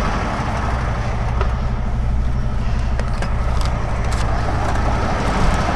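Kenworth T680 semi truck's diesel engine idling steadily, with a few light knocks and clicks from climbing down the cab's metal steps.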